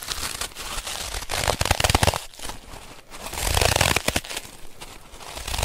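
Crunching snow sound effect, in slow surges about two seconds apart with fine crackling in between.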